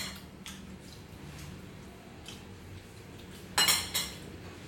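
Metal spoon clinking against a small ceramic sauce bowl: a few light taps, then a louder run of clinks near the end.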